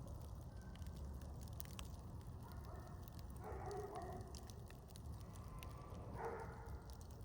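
Campfire burning with faint scattered crackles and pops over a steady low rumble; a few brief faint pitched sounds come in about halfway through and again near the end.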